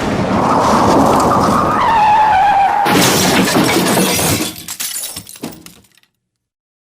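Car crash sound effect: tyres screeching in a squeal that drops in pitch, then a sudden loud impact about three seconds in, followed by breaking glass and debris clattering and dying away. The sound stops abruptly about six seconds in.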